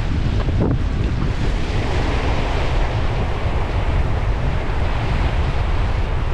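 Strong wind rumbling steadily on the microphone, with waves washing at the water's edge.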